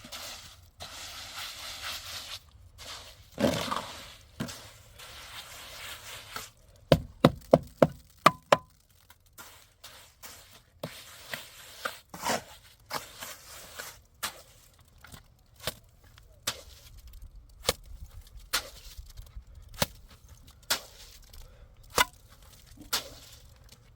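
Repeated sharp knocking strikes: a quick run of about six blows a few seconds in, then single blows roughly once a second.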